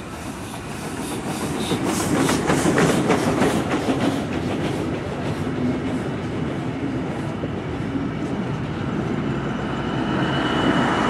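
Steam tank locomotive 93.1420 passing close by with quick rhythmic exhaust beats, followed by its coaches clattering on the rails. Near the end the small diesel locomotive 2062 at the rear passes with a steady engine whine.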